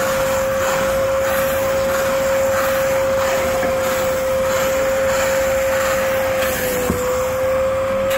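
Steam cleaner with vacuum extraction running, its suction motor giving a steady high whine over the hiss of steam and hot water being sprayed onto and sucked back out of a fabric seat. The whine sags slightly in pitch near the end, with a single click about seven seconds in.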